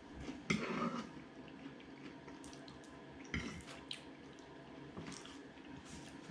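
Close-up wet chewing of a mouthful of steak pie, with mouth smacks and a few short clicks. The loudest smack comes about half a second in.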